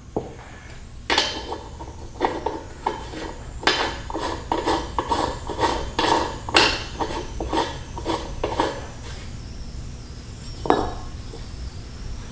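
Metal tools and mower-deck spindle parts clinking and clattering as they are handled, in an irregular run of sharp metallic strikes, then a single clink near the end.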